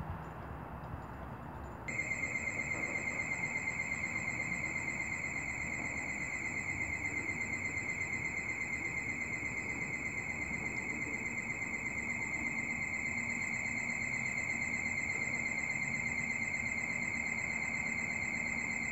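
Station platform train-approaching warning: a high-pitched electronic tone with a fast, even warble switches on about two seconds in and holds steady.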